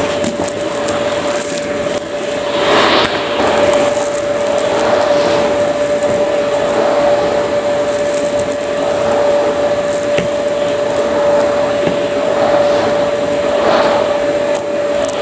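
Vacuum cleaner running steadily with a high motor whine over an airflow rush, its hose and crevice tool drawn across carpet. The rush swells briefly about three seconds in and again near the end as small debris is sucked up the hose.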